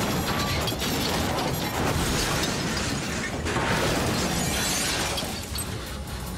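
Film sound effects of a stunt car crash: shattering glass and crashing metal, and the blast of the car exploding, with music underneath.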